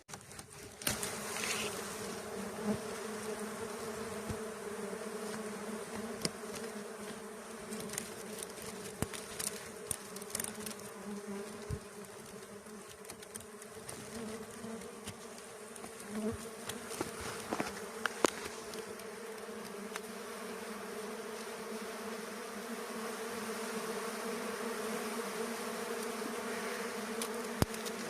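A swarm of honeybees buzzing, a steady droning hum that holds throughout, with scattered sharp clicks and knocks over it.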